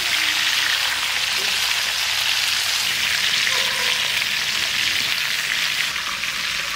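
Pieces of stingray frying in hot mustard oil in an iron kadai: a steady, even sizzle.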